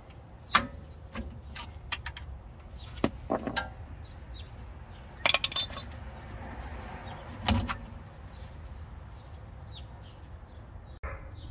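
Scattered metallic clicks and clinks of hand tools and a steel bushing-press cup being worked and taken off a suspension knuckle, with one brief ringing clink about five seconds in, over a steady low rumble.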